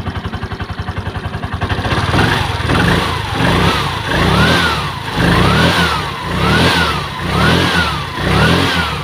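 Piaggio Ape 200cc engine running, idling evenly at first, then revved up and let back down about once a second, seven or so times. It runs well on fresh gasoline after its dirty fuel tank was cleaned to cure a hard start.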